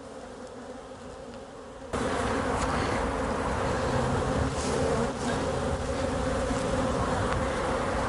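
A dense mass of honeybees from a defensive ('hot') colony buzzing in a steady hum around the opened hive as frames are lifted out. The buzz jumps suddenly louder about two seconds in.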